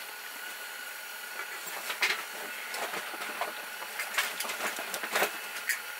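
Propane heater giving off a steady hiss with a faint thin tone in it. Over it, short bursts of fabric rustling and clicks come about two seconds in and again several times between four and five seconds in.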